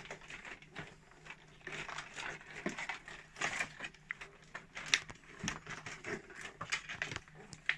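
Irregular small clicks, taps and rustles of hands handling a toy car and its plastic and cardboard packaging.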